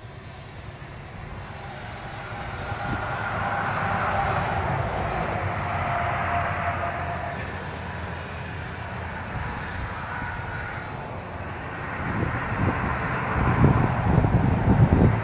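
A large vehicle passing: a rumble that builds over the first few seconds and then holds, with some wavering higher tones. Wind buffets the microphone near the end.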